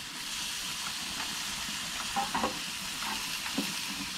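Chicken kabobs and vegetable skewers sizzling on a hot grill, a steady hiss, with a few light clicks and knocks about two seconds in and again near the end as the skewers are turned.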